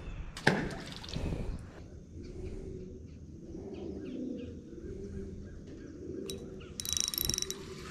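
Outdoor background with birds calling, and a sharp knock about half a second in.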